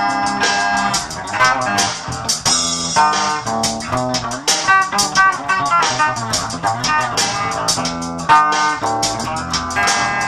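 Dean Rhapsody 8-string electric bass played over a drum loop: a quick, busy run of plucked notes and chords with bright upper overtones from its octave-paired strings.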